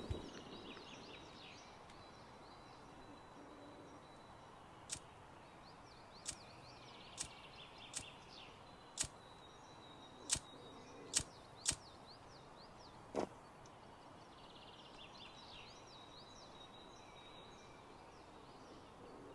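Quiet woodland ambience with faint birdsong chirping. About nine sharp, irregularly spaced clicks or snaps come through the middle stretch.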